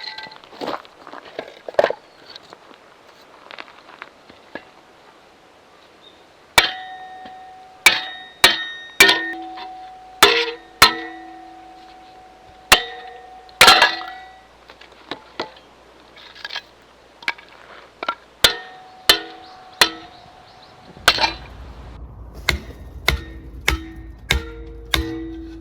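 Sharp metallic clinks and clangs at irregular intervals, each ringing briefly at the same few pitches. About 21 seconds in, background music with a low bass and a steady beat of struck notes comes in.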